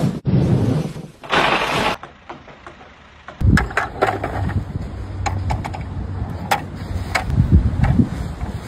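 A mass of roof snow slides and crashes down in rushing bursts of noise. After about three seconds an automatic golf-ball teeing machine takes over, running with a low motor hum and sharp clicks as it feeds a ball up onto the tee.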